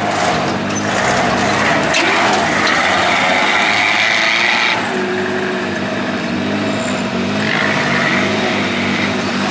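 Off-road 4x4 pickup truck engine revving hard under load on a dirt course, its pitch rising and falling.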